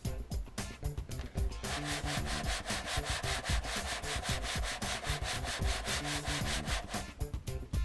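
Sheet of corrugated cardboard shaken rapidly back and forth by hand across a tabletop, scraping and rubbing in a fast, even rhythm, with a cardboard-box model house and phone riding on it. The scraping starts about a second and a half in and stops about a second before the end.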